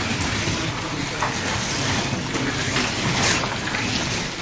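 Slot cars racing on the track: a steady electric whir with pickup and tyre noise, swelling as cars pass close, loudest about three seconds in.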